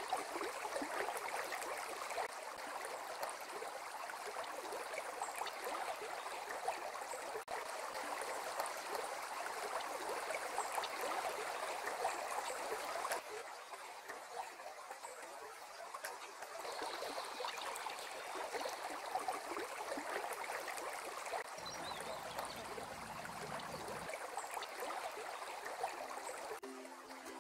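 Shallow river water trickling and babbling over stones, a steady splashy rush with fine crackle. Plucked-string music starts right at the end.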